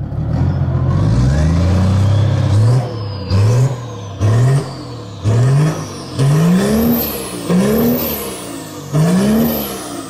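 An engine revved hard: one long rev, then about six short blips roughly a second apart, each climbing in pitch and dropping away.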